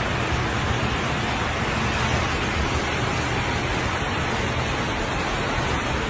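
Heavy rain, a steady rushing hiss with no breaks.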